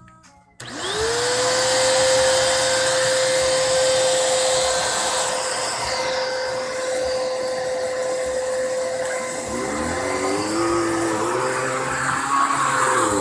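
Vacuum cleaner switched on about half a second in, its motor winding up in pitch and settling into a steady whine. Later, wavering lower tones rise and fall beneath it as the vacuum is worked over the rug.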